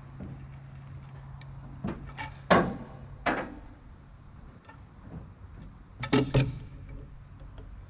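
About five sharp clanks and knocks of metal and wood, the loudest about two and a half seconds in, from log-unloading work on a deck-over trailer: straps coming off and a cant hook on pine logs. A steady low hum runs underneath and stops about two and a half seconds in.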